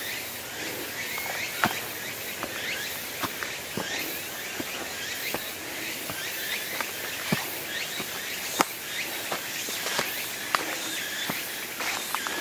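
Footsteps on a rough mountain trail: irregular sharp clicks and crunches, roughly one a second, over a steady outdoor hiss with faint high chirps.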